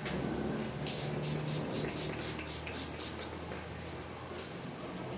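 Pump-spray bottle of hair finishing spray squirted rapidly onto hair: a quick run of short hissing spritzes, about four a second, stopping about three seconds in.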